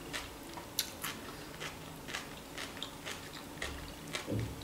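A person chewing fresh cucumber close to the microphone: irregular small wet mouth clicks and crunches, with a soft low thump near the end.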